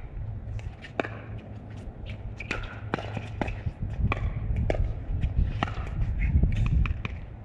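Rally of pickleball paddles hitting a plastic pickleball, with the ball bouncing on the court: a run of sharp pops, about two or three a second, at uneven spacing, over a steady low rumble.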